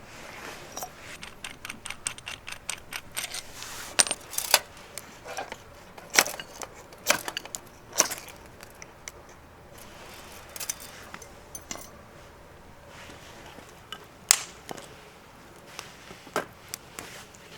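Irregular clinks and knocks of small hard, metallic-sounding objects being handled. A quick run of light clicks comes first, then about a dozen louder single strikes spread out with short gaps between them.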